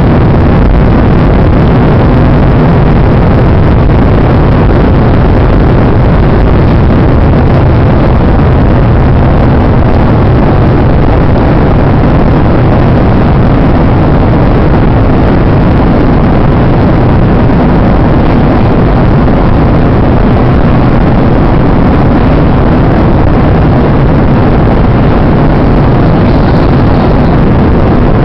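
Airplane cabin noise: a loud, steady drone of engines and rushing air with a low hum underneath, unchanging throughout.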